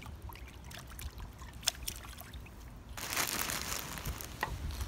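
Water sloshing and dripping in a pot as hands wash chopped meat in lemon water, with a burst of louder, denser splashing about three seconds in.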